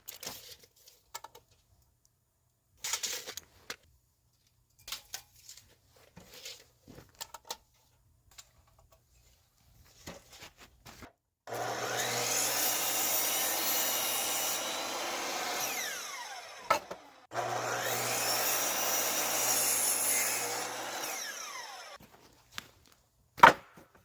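An electric saw cutting through wood twice, each cut running steadily for about four seconds with a short pause between them. Scattered light knocks and handling come before the cuts, and a sharp knock comes near the end.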